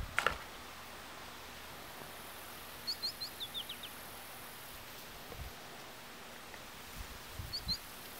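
Small songbird chirping: a quick run of about six short, high notes about three seconds in, and three or four more near the end, over a steady outdoor background hiss. A short thump right at the start.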